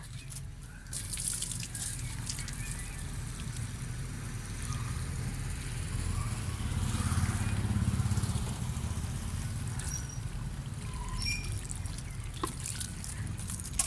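Water from a garden hose splashing into the soil of plastic grow bags. It is a steady trickle that begins about a second in and grows louder for a few seconds in the middle.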